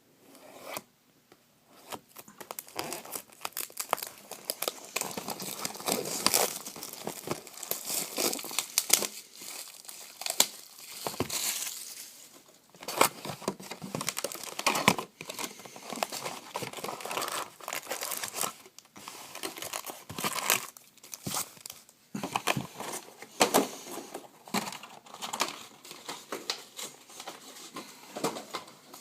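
Crinkly plastic wrapping on a box of baseball trading cards being torn open and crumpled by hand, in long irregular bouts of crackling with brief pauses.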